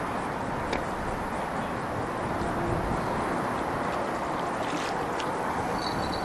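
Steady wind rushing over the microphone beside rippled water, with a couple of faint clicks.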